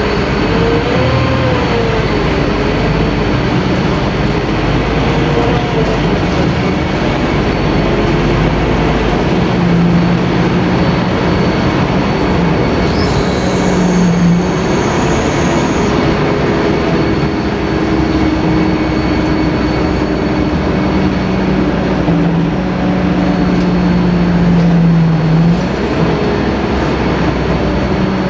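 Scania K-310IA bus's five-cylinder inline diesel engine running loud under way, its pitch rising and falling in the first few seconds, then holding steadier with a few shifts, over a dense rumble and rattle.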